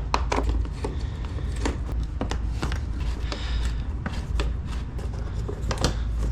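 Irregular light clicks and knocks of hand tools and small metal parts being handled while parts are taken off a motorcycle's rear subframe, over a steady low hum.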